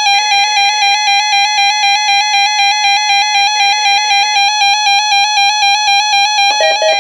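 Weather alert radio's alarm sounding for a NOAA Weather Radio Required Weekly Test: a loud, high beep pulsing rapidly, switching to a lower beep with a warbling tone near the end.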